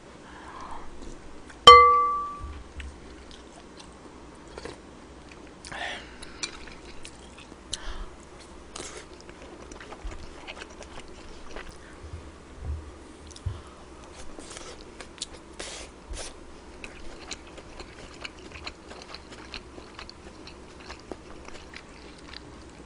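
Close-up eating sounds of kimchi fried rice with pork belly: chewing and small clicks of a utensil against a dish. About two seconds in, one sharp clink of a utensil striking a dish rings briefly; it is the loudest sound.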